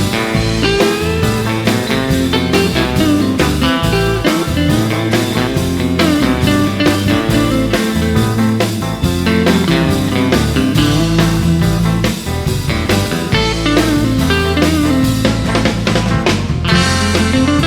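Instrumental break of a blues-rock song: lead electric guitar playing bent notes over bass and a steady drum beat.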